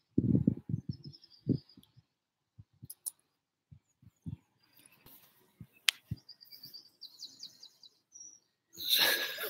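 Birds chirping, with a fast trill about seven seconds in. Low thumps on the microphone in the first second and a half, a single sharp click in the middle and a loud rustling burst near the end.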